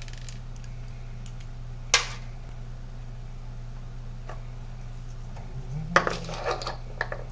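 Shotgun shells being handled on a workbench: a sharp click about two seconds in, a faint tick later, and a short run of small clicks and rattles near the end, over a steady low hum.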